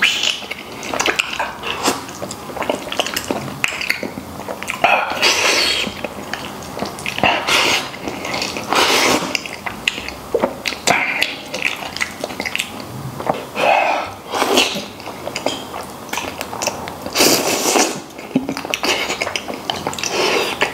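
Close-miked eating sounds: a man biting into, chewing and slurping gelatinous braised beef trotter meat, in irregular loud bursts.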